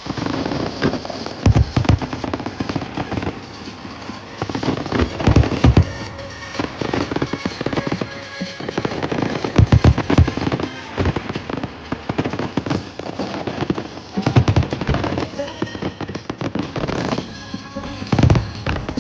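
Fireworks display: loud booms of aerial shells bursting about every four seconds, with dense crackling and popping between them. Music plays underneath.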